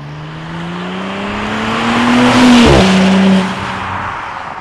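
Audi B9 S4's turbocharged 3.0 V6, with the centre muffler removed by an X-pipe, accelerating hard past the listener. The exhaust note climbs in pitch and grows loud, drops suddenly about two and a half seconds in, then fades as the car pulls away.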